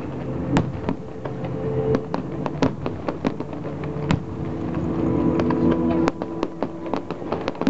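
Fireworks display: aerial shells bursting in quick, irregular succession, sharp bangs and crackles several times a second over a low steady drone.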